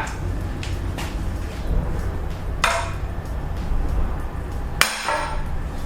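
Hammer striking a socket held against a front wheel hub spindle to drive it out of the old wheel bearing: a few sharp metallic blows a second or two apart, each ringing briefly, the loudest near the end.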